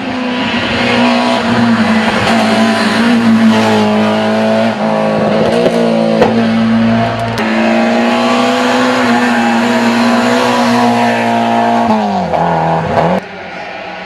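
Rally car engine running hard at high revs, holding a steady pitch, then its pitch falls sharply near the end.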